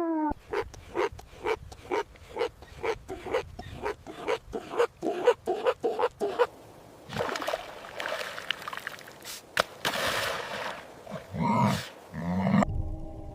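A dog barking in a fast, even run of short barks, about three a second, for the first six seconds or so. A noisy stretch and a brief low call follow, and music begins near the end.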